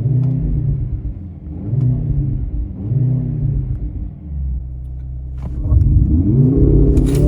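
The Mercedes-AMG C63 S E Performance's turbocharged 2.0-litre four-cylinder is revved in three quick blips that rise and fall in pitch. It then settles for a moment before a longer climb in revs near the end, with a sharp crack just before the end.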